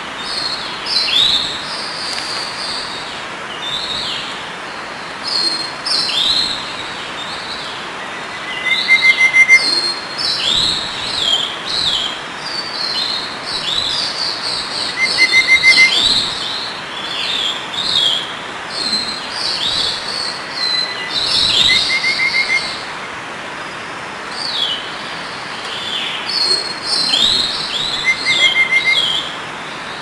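Several small birds chirping busily, with many short, quick, downward-sweeping calls and a brief high trill about every six seconds, over a steady background hiss.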